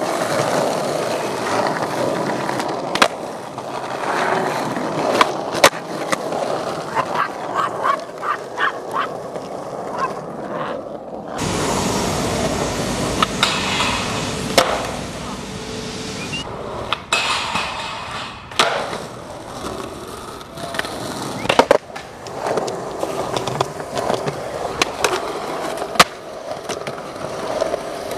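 Skateboard wheels rolling over concrete and pavement, broken by sharp clacks of the board popping, landing and hitting ledges and rails over several tricks.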